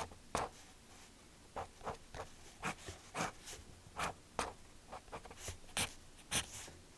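Drawing on paper: a quick, irregular run of short scratchy strokes as a bird doodle is sketched.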